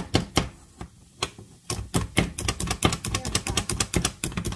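Pampered Chef plunger food chopper being pumped by hand to chop an onion: rapid plastic clacking of the plunger and blades, several strokes a second, with a brief pause about a second in.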